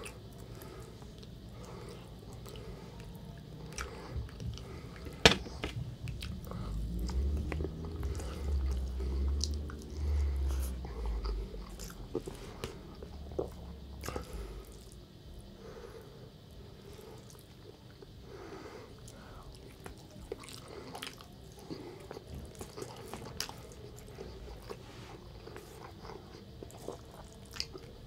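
Close chewing and mouth sounds of a person eating meat and rice, with scattered light clicks of a plastic spoon against a plastic takeaway tray. A sharp click about five seconds in, followed by a low rumble for several seconds.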